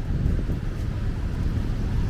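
Wind buffeting the microphone in an uneven low rumble, over the steady hum of street traffic.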